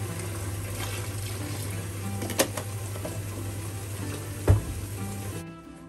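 Tap water running steadily into a plastic bucket, with a sharp click about two and a half seconds in and a louder knock about four and a half seconds in. The running water cuts off abruptly near the end, leaving faint background music.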